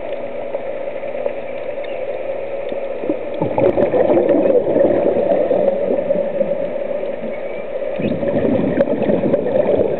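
Scuba diver breathing out through a regulator underwater: two bursts of exhaust bubbles, one starting about three seconds in and one about eight seconds in, over a steady hum.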